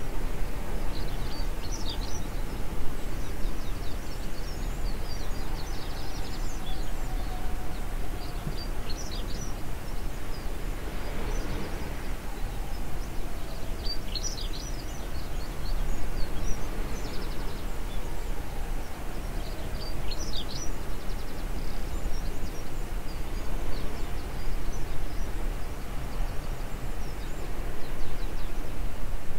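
Birds chirping and calling at dawn, short high notes coming in scattered clusters, over a steady low rumble of outdoor ambience. A brief swell of broader noise rises and fades about a third of the way through.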